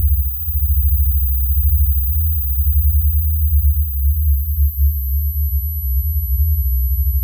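Deep low drone from the film's sound score: a loud hum that wavers and pulses without a break, with a faint, steady high whine above it.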